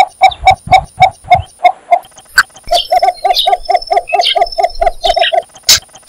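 Cinnamon bittern calling: a run of short, low notes, about four a second, that stops after under two seconds, then after a short pause a second, quicker run of about five notes a second.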